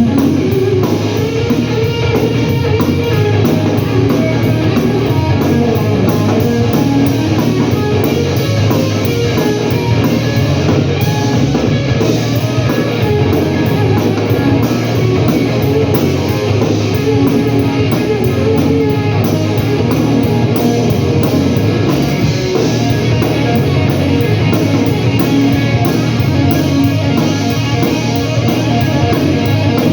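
Live blues-rock band playing an instrumental passage: electric guitar over drums, steady and loud.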